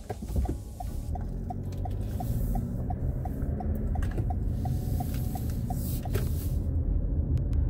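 Turn-signal indicator ticking steadily inside a Toyota RAV4's cabin, about three ticks a second, stopping about six seconds in as the turn is completed. Under it, engine and road rumble grow louder as the car pulls away.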